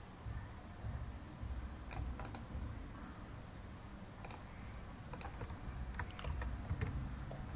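A handful of sharp, scattered computer mouse and keyboard clicks over a faint low hum.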